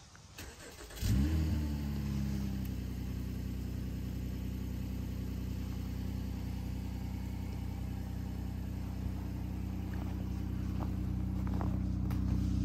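Honda Ridgeline's 3.5-litre V6 cold-starting by remote start: it catches about a second in with a brief rise in revs, then settles into a steady, relatively quiet idle, growing louder near the end as the exhaust gets closer.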